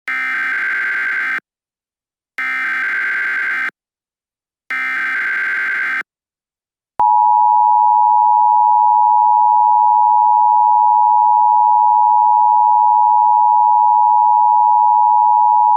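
Emergency Alert System SAME header: three identical bursts of warbling digital data tones, each about a second and a half long with a short gap between them. About 7 s in, the steady two-tone EAS attention signal (853 and 960 Hz) begins and holds.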